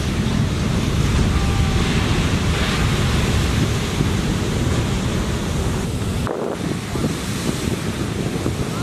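Heavy shore-break surf crashing and washing, with strong wind buffeting the microphone.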